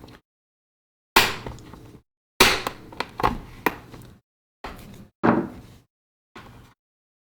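Plastic case of a tablet being pried apart: about nine sharp cracks and knocks as the snap-fit clips give way, several in quick succession in the middle, each dying away quickly.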